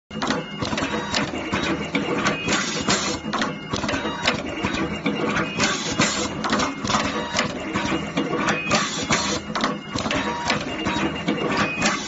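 Wire crimping machine running, a continuous mechanical clatter of sharp strokes at about three a second, a little uneven.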